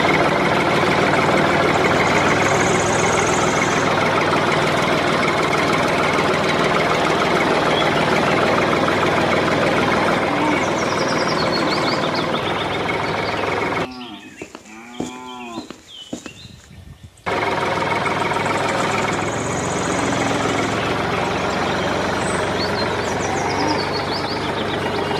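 Tractor engine running steadily. About 14 seconds in it breaks off for about three seconds, and a cow moos a few times before the engine sound returns.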